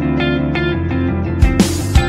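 Background music: a plucked guitar figure, with drums and a crash coming in about one and a half seconds in.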